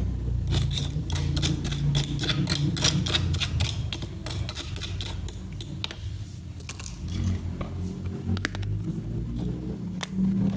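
Rapid light clicks and taps of small hard toy kitchen pieces being handled, dense for the first few seconds and then sparser, over a low rumble of handling noise.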